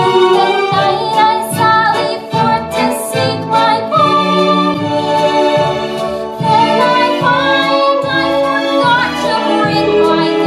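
A song from a stage musical, sung by a chorus of voices over instrumental accompaniment with a steady beat.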